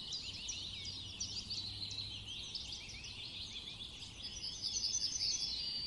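Many small birds chirping and twittering together in a busy chorus, with a louder run of quick repeated high notes near the end.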